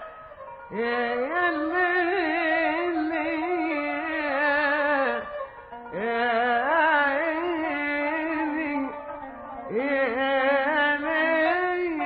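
Background music: a single ornamented melodic line with wavering pitch, in three long phrases that each open with an upward slide, about a second, six and ten seconds in.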